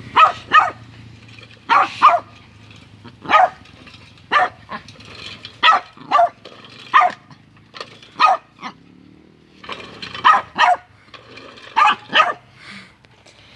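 Small dog barking repeatedly at a lawnmower, short sharp barks often in pairs about a second apart, with a steady low hum of the mower's engine running underneath.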